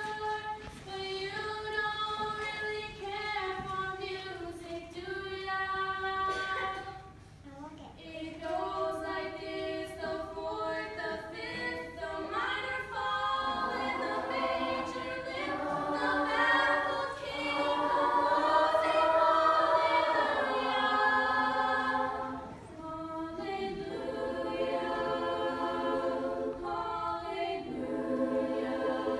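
Youth choir singing a song, young voices in parts. The singing dips briefly about a quarter of the way in, then grows fuller and louder, and is at its loudest about two-thirds of the way through.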